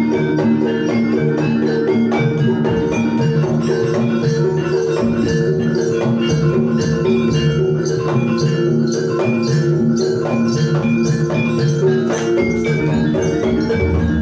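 Live Javanese jaranan gamelan music: struck metal-keyed instruments and drum playing a steady, even run of notes over sustained held tones.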